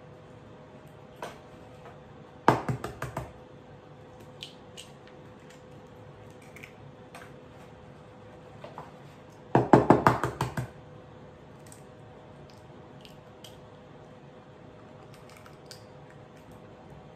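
Eggs being cracked: two quick runs of sharp taps of shell against the rim of a plastic mixing bowl, about seven seconds apart, the second the louder, with a few faint clicks of shell and fingers between, over a faint steady hum.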